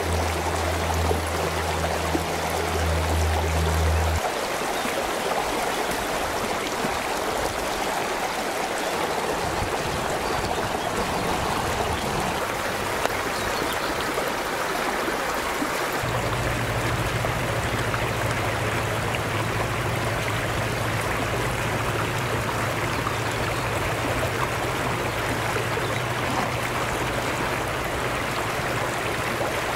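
Shallow mountain stream running over flat rock shelves: a steady, even rush of water.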